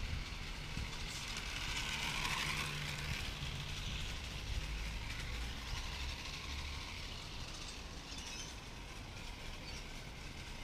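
Small live-steam tram, a tin toy converted to steam, running on garden-scale track: a steady hiss with a low rumble, loudest about two to three seconds in and easing off afterwards.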